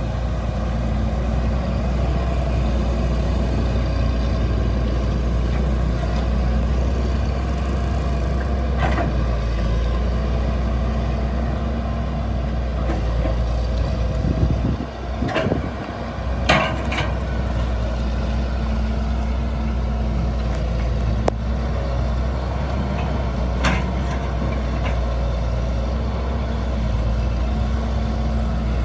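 Excavator's diesel engine running steadily, with a few short sharp sounds from the machine working, the loudest about halfway through.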